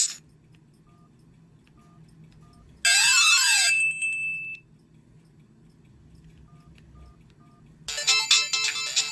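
Samsung SGH-A727 phone's loudspeaker playing its built-in ringtones in turn. One tune cuts off at the start, then a short chime of a rising and a falling tone sweeping past each other comes about three seconds in. Another polyphonic ringtone starts near the end, with faint short beeps in the gaps between them.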